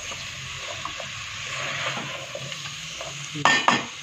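Tinda and chicken sizzling in an aluminium pot as a wooden spatula stirs and scrapes through them. Two loud knocks come close together near the end.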